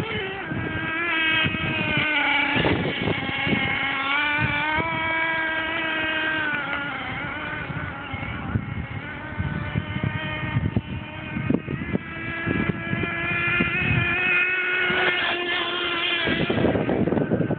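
OFNA LX Ultra One nitro RC truck's small glow-fuel engine running at high revs, its high-pitched buzz rising and falling with the throttle. Near the end the engine note drops out, leaving rough rustling noise.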